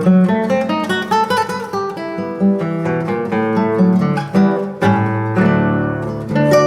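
Solo classical guitar, a 1965 José Ramírez concert guitar, playing a quick run of plucked notes over a ringing bass, with a deeper bass note and fuller chord about five seconds in.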